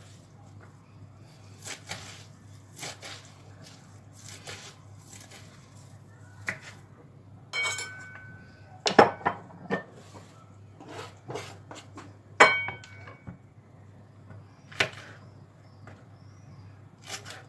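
Dishes and cutlery clinking and clattering in scattered knocks, with two brighter ringing clinks about eight and twelve seconds in.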